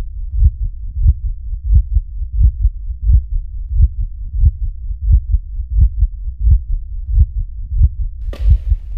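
A heartbeat in the soundtrack: deep, loud low thumps about one and a half times a second, steady throughout. Just before the end, a breathy hiss comes in over it.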